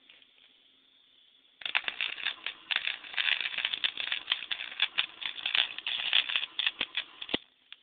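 Wire-feed (MIG) welding arc crackling and sputtering in an irregular run of sharp pops, starting about a second and a half in and stopping abruptly near the end.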